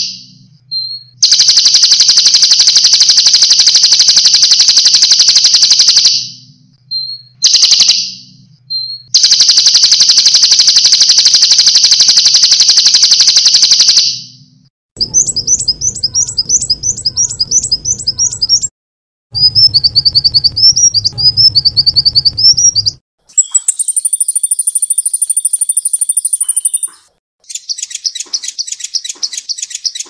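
Edited sequence of songbird recordings: two long, unbroken high trills of about five seconds each, then a run of quick rising chirps, a high steady whistle for about three seconds, and fast repeated notes near the end. The segments start and stop abruptly.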